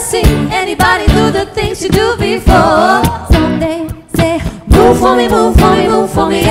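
Several women singing together in harmony with wavering vocal runs, over a steady beat.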